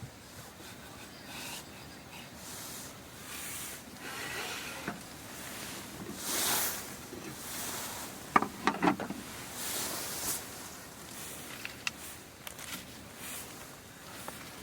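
Soft rustling and swishing, with a quick cluster of clicks and knocks a little past eight seconds in and a few single ticks later.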